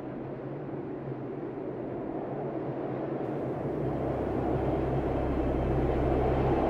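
A low rumbling drone in the film's sound design, swelling steadily louder, with a deep steady hum joining a little past halfway.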